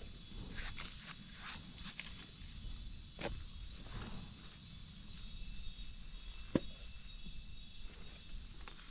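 Steady high buzz of an insect chorus in the forest, with scattered rustles of footsteps through the undergrowth and one sharp click about two-thirds of the way in.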